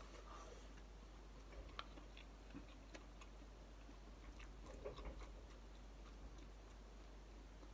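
Quiet eating sounds: soft chewing with a scattering of small clicks, a little busier around the middle, over a faint steady low hum.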